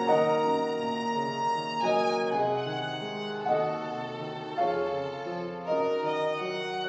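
Violin playing a slow melody of long held notes over grand piano accompaniment, each new note entering about every second or so.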